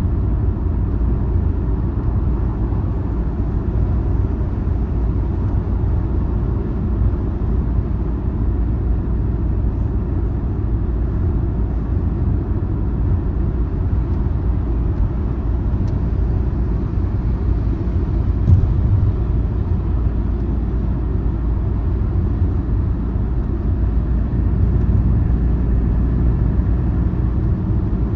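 Steady low rumble of a car driving along the road, tyre and engine noise, with one brief click about two-thirds of the way through.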